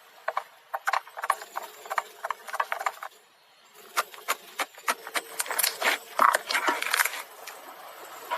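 Slime being squeezed and poked by hand, giving a run of sticky clicks and crackling pops, with a short pause about three seconds in before the crackling picks up again, denser.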